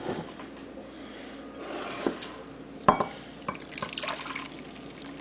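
Red Kool-Aid-sweetened pickle juice pouring from a glass jar into a bowl, with a sharp knock about three seconds in.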